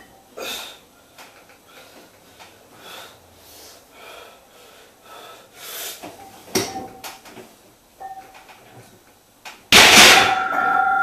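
Loaded steel barbell set down onto the power rack near the end: a sudden loud metal clang that keeps ringing. Before it, only faint scattered clicks and short hisses.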